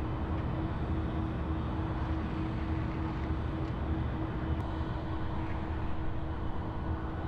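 EMD SD70ACe diesel-electric locomotive idling: a steady low rumble with a constant hum.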